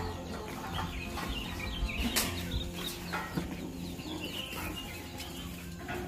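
Chickens clucking in short calls over a steady low hum.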